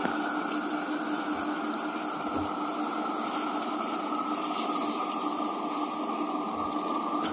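A steady machine hum and hiss with a high whine that sinks slightly in pitch, under a few light scrapes of a metal spatula in an iron kadai.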